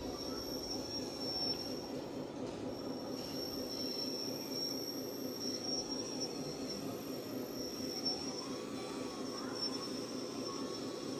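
Radio-controlled model construction vehicle running: a steady high-pitched whine from its electric drive and gearing over a continuous rumble.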